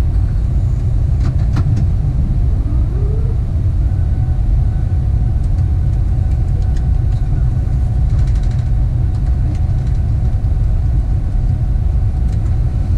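Airbus A380 flight-deck noise during the landing rollout: a steady low rumble of the airliner rolling down the runway, with two short clicks just over a second in.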